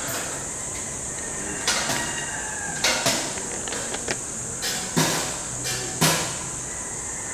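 About half a dozen sharp knocks at uneven intervals over a steady hiss of background noise.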